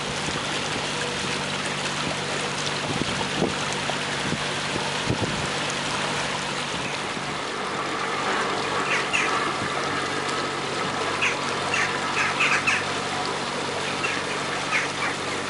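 Motor cruiser under way, its engine humming steadily under the wash of water along the hull. In the second half a run of short bird calls sounds over it.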